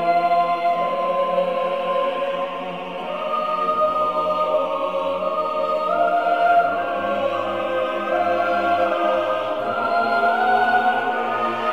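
Slow background music of sustained choir-like voices holding chords that shift every couple of seconds, with a low bass note coming in about four seconds in.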